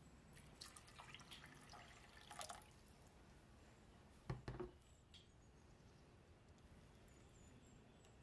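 Quiet kitchen sounds: faint liquid dripping and sloshing of tomato broth in a glass baking dish, then a single soft thump a little past the middle. The rest is near silence.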